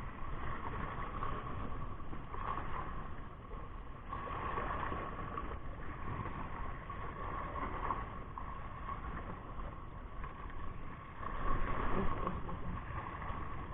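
Sea water washing against a coral-rock shore, with wind noise on the microphone; a louder surge of water comes about eleven seconds in.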